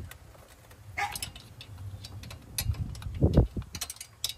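Light clicks and knocks of hands handling intake parts around a throttle body in an engine bay, with a louder dull thump about three and a half seconds in.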